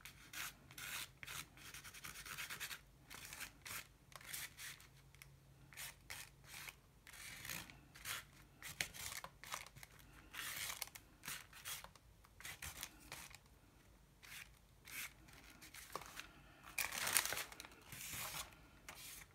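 A small plastic knife scraping and spreading navy blue acrylic paint across a collaged paper page in many short, quiet strokes. A louder plastic crinkle comes about three-quarters of the way in as a plastic sheet is lifted.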